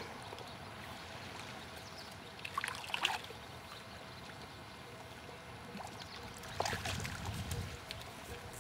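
Faint splashing of a hooked barbel thrashing at the water's surface in the shallows while being played on a fly rod. The splashing comes in two short bouts, about two and a half seconds in and again around seven seconds.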